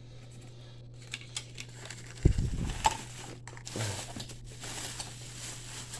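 Rustling and clicking of plastic power adapters and their cords being handled and sorted, with a dull thump a little over two seconds in.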